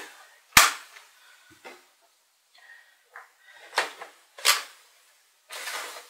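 Sharp plastic clicks and snaps from the brush compartment of a Roborock robot vacuum as its parts are handled and clicked into place, the loudest about half a second in and several smaller ones after. Near the end, a rustle of the robot's plastic body being lifted.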